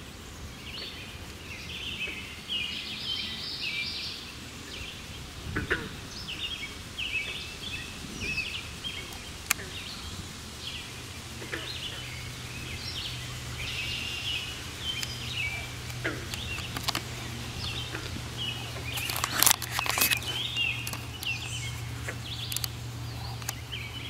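Several small songbirds singing in the background, with many short high chirps and phrases overlapping. A low steady hum comes in about ten seconds in, and a few sharp clicks sound about two-thirds of the way through.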